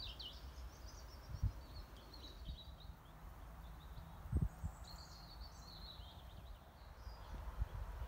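Faint birdsong outdoors: short, high twittering phrases right at the start and again about five seconds in, over a low background hiss. Two brief low thumps, about one and a half and four and a half seconds in.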